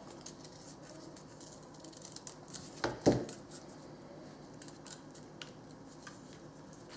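Small scissors snipping little shapes out of folded paper, in scattered short snips, with a louder sharp clack about three seconds in.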